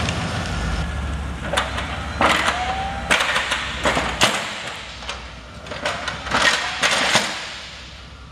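A 5.7-litre V8 pickup engine running at low speed, its rumble fading over the few seconds. A series of sharp clicks and knocks lands on top, about eight in all, the loudest around two, three and four seconds in.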